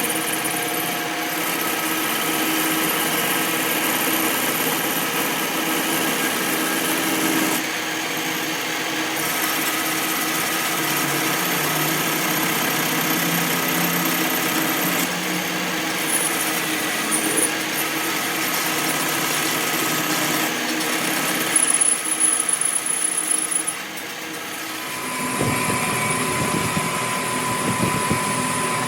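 A small motor, like a hand-held power tool, running steadily. The sound changes abruptly several times, and a lower rumble comes in near the end.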